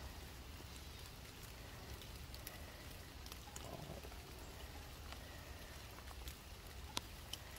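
Light rain pattering on grass and leaves, with scattered small ticks of drops.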